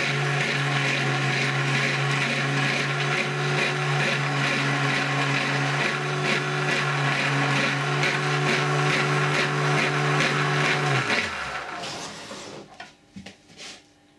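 Homemade sharpening machine's windscreen-wiper motor running with a steady hum, with the edge of a V carving tool hissing against its spinning tulip-wood profiled wheel. About eleven seconds in the motor stops. It is followed by a few faint scrapes of the freshly honed V tool cutting wood.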